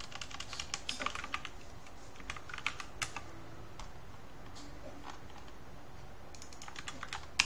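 Computer keyboard typing in short runs of keystrokes, with a pause of about three seconds in the middle and one louder click near the end.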